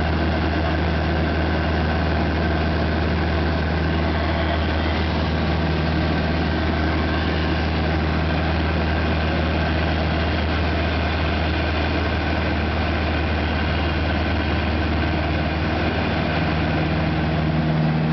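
Van's RV-4 light aircraft's piston engine and propeller droning steadily, heard inside the cockpit. Its note shifts slightly near the end.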